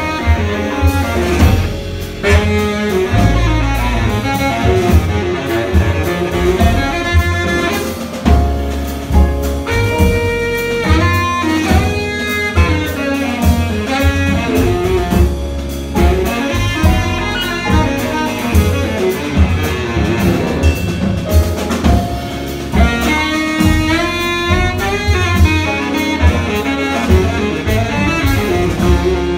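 Live jazz quartet playing: baritone saxophone over piano, double bass and drum kit.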